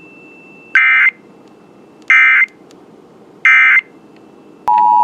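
Emergency Alert System end-of-message signal: three short digital data bursts about 1.3 seconds apart, marking the end of the monthly test. Just before the end, the steady two-tone EAS attention signal starts.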